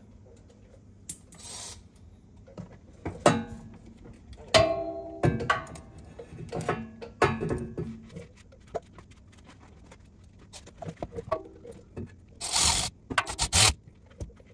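A ratchet tightening the hose clamp on a blow-off valve fitted to silicone charge piping: scattered scraping and clicking of the tool against metal and hose, with a brief squeaky rasp about five seconds in. Near the end comes one loud rasping burst of the ratchet, then a few short ones.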